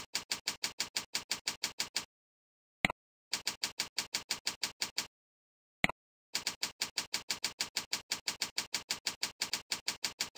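Computer keyboard typing: an even patter of keystrokes, about six or seven a second, in three runs that stop and start. A single sharper click comes just before each run.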